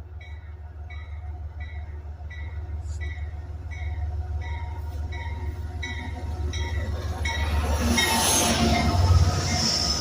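Amtrak Maple Leaf passenger train pulling into a station. The diesel locomotive's low rumble grows louder as it comes close and passes, over a bell ringing about twice a second, with a high wheel squeal near the end as the train slows.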